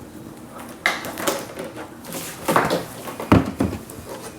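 A handful of knocks and clattering clunks of hard objects being handled and set down, loudest a little past the middle.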